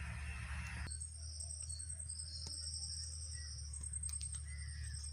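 Insects trilling in high, pulsing stretches of about a second each, starting about a second in, with a few faint bird calls over a low steady hum.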